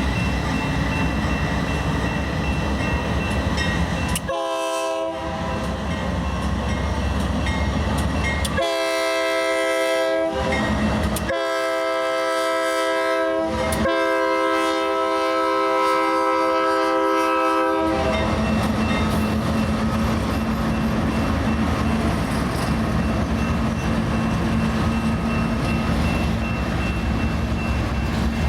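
Nathan K3LA five-chime air horn on a Union Pacific GE C44ACM diesel locomotive sounding four blasts with a wheezing tone: a short one, then three longer ones, the last held about four seconds. The locomotives' diesel engines rumble underneath as they pull the train.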